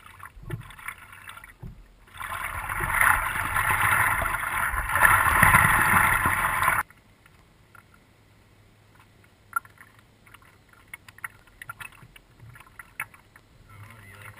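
Water splashing and rushing around a paddled kayak, loud for a few seconds and then cutting off suddenly. Afterwards there are only faint drips and small knocks on the hull.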